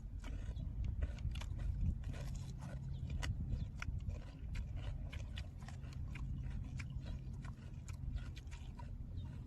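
A person chewing and biting food close to the microphone: many small, irregular mouth clicks, over a steady low hum.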